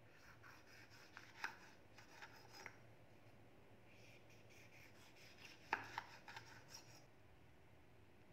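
Kitchen knife slicing through a tomato onto a wooden cutting board: a run of soft cuts and taps about a second in, then another shorter run near six seconds.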